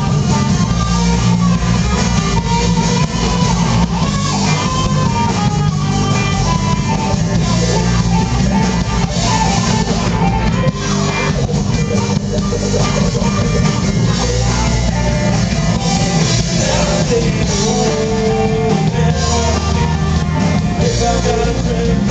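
Rock band playing live: electric guitars over bass and drums.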